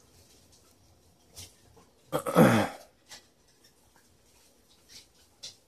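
A person's short vocal sound, about two seconds in, falling in pitch and rough like a grunt or throat clearing. Faint scattered clicks are heard around it.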